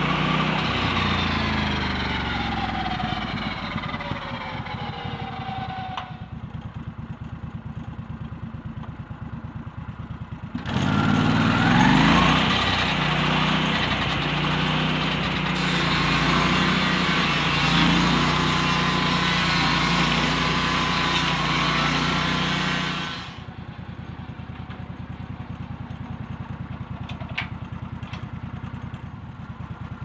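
Lucas Mill swing-blade portable sawmill's engine and circular blade winding down in pitch from full speed to a pulsing idle over the first six seconds. It revs back up about eleven seconds in, runs steadily at speed, and drops back to idle about two-thirds of the way through.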